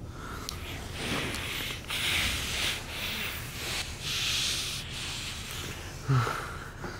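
A couple kissing up close: breathing and clothing rubbing, rising and falling in swells of about a second each, with a short low vocal murmur about six seconds in.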